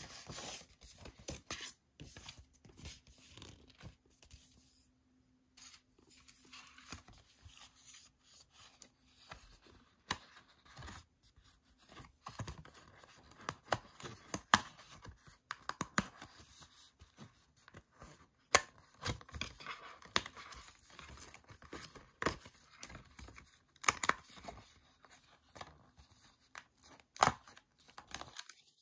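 Die-cut cardstock sheet being handled and its pieces pressed out by hand: stiff paper rustling, with short tearing sounds and many irregular sharp snaps.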